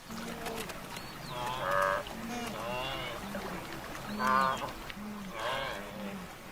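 A wildebeest herd calling: repeated short, low grunts overlap with three louder, longer moaning calls, about 2 s, 4 s and 5.5 s in. A few high chirps are mixed in.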